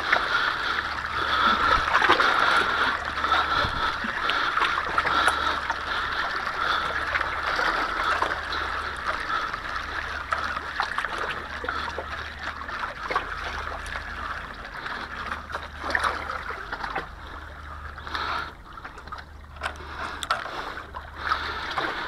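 Small sea waves lapping, splashing and trickling among shoreline rocks, growing quieter and more broken near the end.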